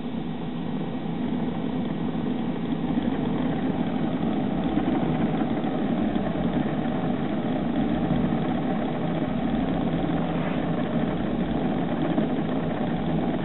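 Homemade Gingery metal lathe running at 35 RPM under its motor drive with the automatic lead-screw feed engaged, taking a light cut in steel: a steady mechanical hum. Through it runs a clicking that the builder puts down to the coarse, 96-count encoder on the spindle speed control.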